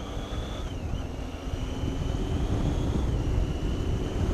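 Triumph Tiger 800's three-cylinder engine running as the bike is ridden, with wind and road rumble on a helmet microphone, slowly getting louder as it speeds up. A thin high whine runs over the rumble.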